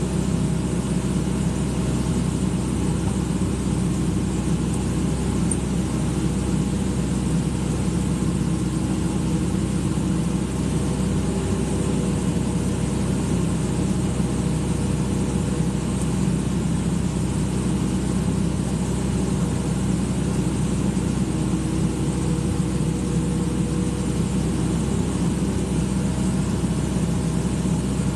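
Excavator's diesel engine running steadily at an even speed.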